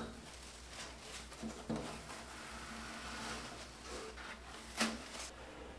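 Soft rubbing and handling of protective foam being pulled off the end of a glass CO2 laser tube, with a light knock at the start and another near the end.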